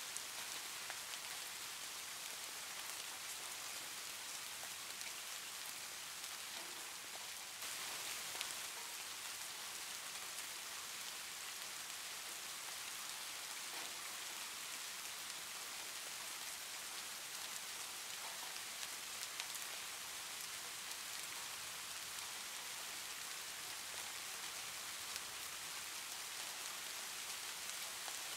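Soft rain ambience recording: a steady hiss of light rain with a few faint drop ticks, stepping up slightly in level about seven and a half seconds in.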